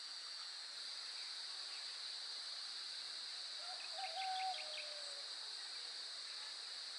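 A steady, high-pitched insect chorus, with a short call, most likely from a bird, about four seconds in.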